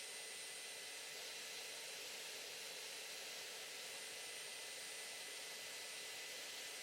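Faint steady hiss with a few faint high whine tones, unchanging throughout; no saw cut is heard.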